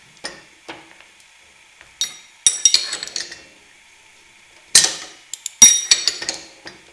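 Socket ratchet and open-end wrench clicking and clinking against a steel coupling in about four short clusters, as the coupling is turned onto an alternator shaft whose badly cut threads make it bind.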